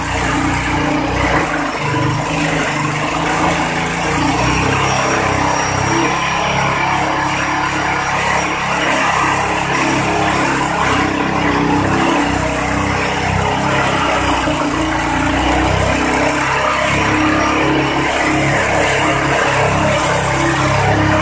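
Grass chopper driven by a small stationary engine, running steadily under load as grass stalks are fed into its cutter, with a continuous shredding noise over the engine hum.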